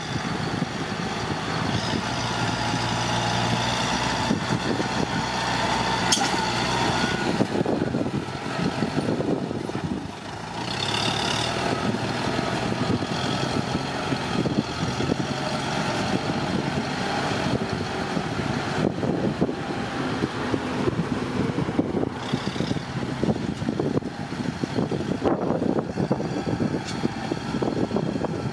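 Kubota tractor's diesel engine and a dump truck's engine running, the truck raising its bed to tip out a load of soil. The steady engine note dips briefly about ten seconds in, and the sound is rougher after that.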